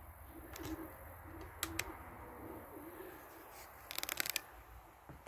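Pigeons cooing in low, wavering calls, with two sharp clicks and then a quick run of crackling clicks about four seconds in.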